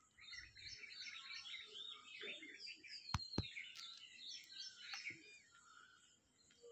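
Faint chirping of many small birds, overlapping calls that come and go, with two sharp clicks close together a little after three seconds in.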